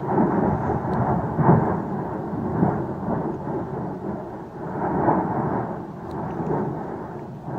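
Volcanic eruption rumbling like rolling thunder: a deep, continuous roar that swells and fades in several waves, loudest about a second and a half in and again about five seconds in.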